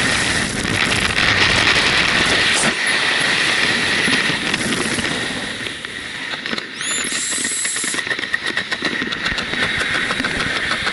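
Freefall wind rushing and buffeting over the camera microphone. The deep rumble drops out a few seconds in and the rush eases, with a brief rising squeal near the middle, then fast crackling flutter.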